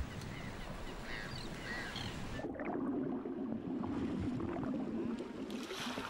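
Faint gull calls over a water wash, then, after an abrupt change, a low rushing of water.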